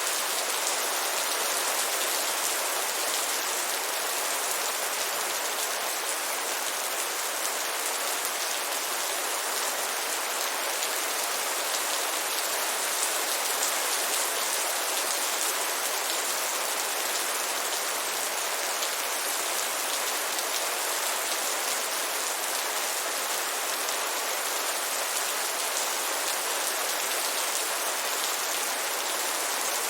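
Heavy rain falling steadily, an even dense hiss of many drops with no thunder or other events.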